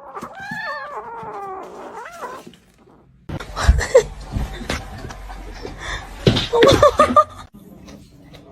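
Cat meowing: a few drawn-out calls that fall in pitch. After a short pause comes a noisier stretch of knocks and rustling with brief cries.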